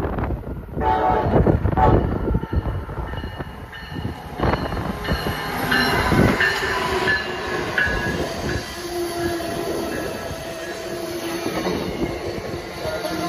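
An Amtrak passenger train led by a Siemens ACS-64 electric locomotive passes close by at speed. The wheels clatter over the rails under a loud rush of noise, with thin high steady tones ringing over it from about halfway through as the cars go by.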